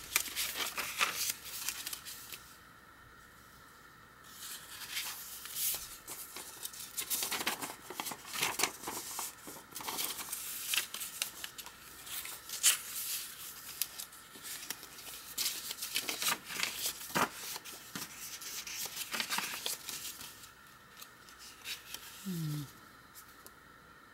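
Paper pages and loose photographs of a handmade journal rustling and crinkling as they are turned and handled, in irregular papery crackles with a couple of quieter pauses.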